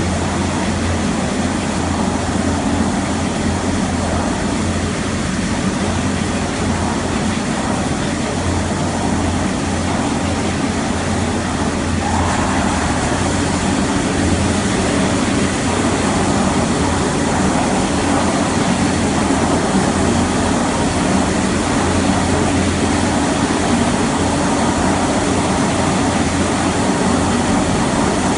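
Schleifstein cold spinning, dishing and flanging machine for heavy sheet metal running: a steady low hum with a continuous mechanical noise over it, growing slightly louder and brighter about halfway through.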